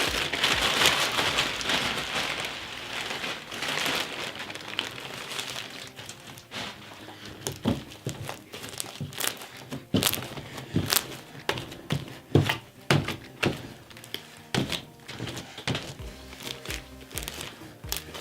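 Polystyrene foam beads shaken from a crinkly plastic packet into a bowl of slime, then a run of light, irregular clicks and taps, over background music.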